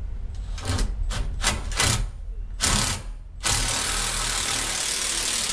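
Red cordless drill/driver working at a pipe-handrail flange on a concrete wall. It goes in several short trigger pulses over the first two seconds, then a longer burst, then a steady run of about two seconds near the end.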